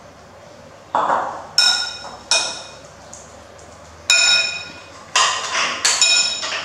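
Metal spoon clinking and scraping against a ceramic bowl while stirring food: about five ringing clinks, two close together near the end, with duller scrapes between them.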